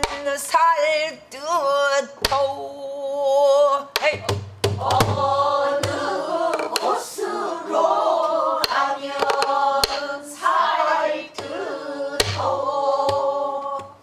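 Pansori singing: a woman's voice holds long, wavering sung notes in the traditional style, punctuated by scattered strokes on a buk barrel drum struck with a stick. From about four seconds in, a group of voices sings along.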